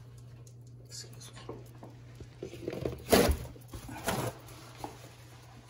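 A few short knocks and scrapes, the loudest about three seconds in, over a steady low hum.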